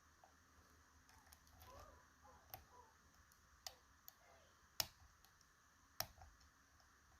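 Faint scattered clicks of a lock pick and tension wrench working the top row of pins in a Lockman Megacross, a Japanese two-row pin lock. Four sharper clicks stand out, the two loudest about five and six seconds in.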